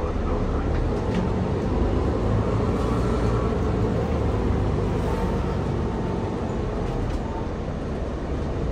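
Interior running noise of a Mercedes-Benz Citaro O530G articulated bus on the move: engine and road noise, steady throughout.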